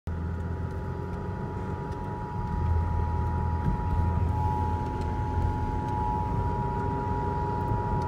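Emergency Alert System two-tone attention signal, a steady dual-pitched alarm, playing from the car radio ahead of a National Weather Service tornado warning. Engine and road noise run underneath it inside the cabin.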